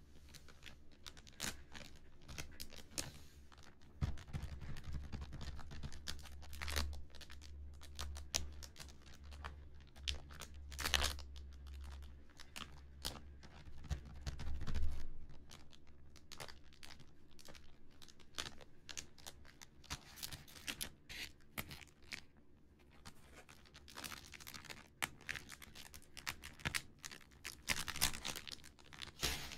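Fingertips tapping and scratching on the crinkly clear plastic wrapping of a flat cardboard model kit, in irregular soft taps and crackles. A low rumble runs under the handling for about ten seconds in the first half.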